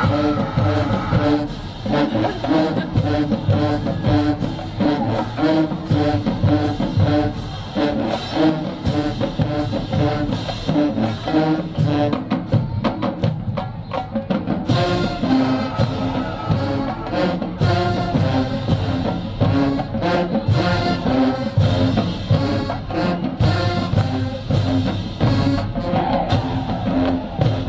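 Marching band playing a tune: brass over a steady beat of drums and cymbals. The drums drop back briefly about halfway through.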